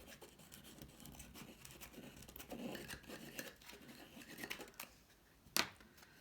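Paper craft pieces being handled and slid together: faint rustling and scraping of paper, with a sharp tap about five and a half seconds in.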